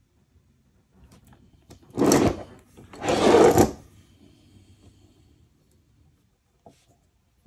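Plastic model-locomotive chassis scraping across a wooden desk top as it is turned around, in two loud scrapes about a second apart, the second one longer, with a few light ticks of handling around them.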